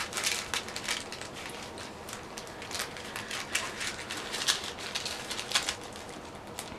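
Irregular light clicks, taps and rustling from small objects being handled and moved about.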